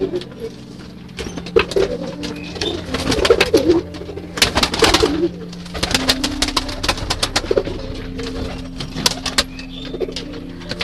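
Domestic pigeons cooing in a loft, with sharp wing claps and flapping as several birds take off and flutter; the loudest burst of flapping comes about four to five seconds in.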